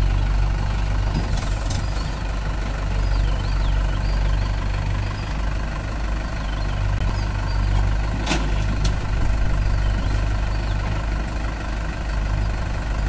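Mahindra 585 DI tractor's four-cylinder diesel engine running steadily at low revs. A sharp knock about eight seconds in is the loudest moment.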